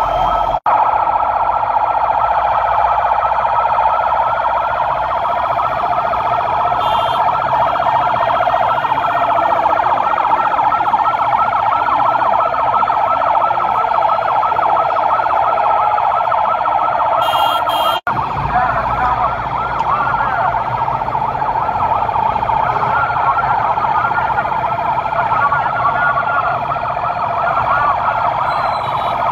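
Many vehicle sirens wailing at once in a dense, overlapping chorus, their pitches rising and falling out of step with one another. The sound breaks off for an instant about two-thirds of the way through.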